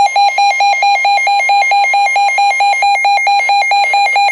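Emergency weather alert alarm for a severe thunderstorm warning: a single harsh beeping tone pulsing rapidly and evenly, about four to five beats a second.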